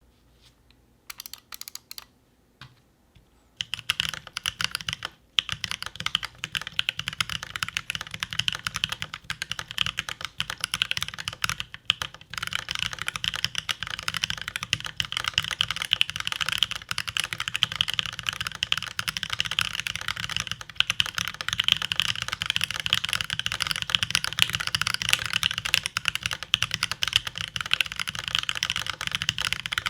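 Mechanical keyboard with lubed Gazeww Boba U4T tactile switches on a brass plate and GMK keycaps being typed on. A few single keystrokes come first, then fast, continuous typing from about four seconds in.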